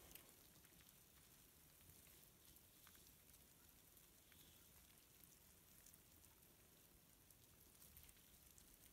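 Near silence: a faint steady hiss with a few tiny scattered ticks.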